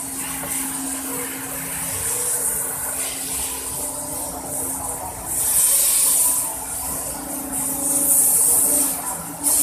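Steady machinery hum at an automatic pipeline welding station, with a loud hiss that swells up for about a second at a time, twice in the second half.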